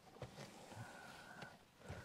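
Near silence inside a car, with two faint knocks of items being handled, one just after the start and one near the end.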